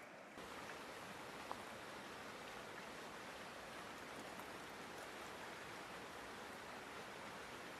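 Steady rush of flowing stream water, with a single short click about one and a half seconds in.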